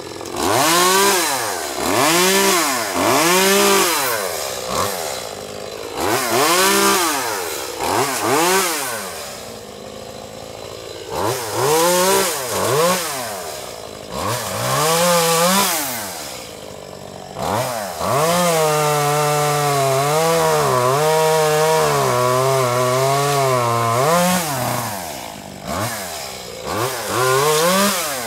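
Echo CS-2511T top-handle chainsaw's small two-stroke engine revving up in short bursts about every two seconds and dropping back toward idle between them. About two-thirds of the way through, it is held at high revs for roughly six seconds with a wavering pitch while the chain cuts through a limb.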